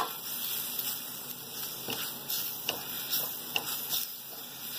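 A spatula stirring and scraping an onion-and-spice masala as it fries in a nonstick pan, under a soft sizzle, with a few light scrapes.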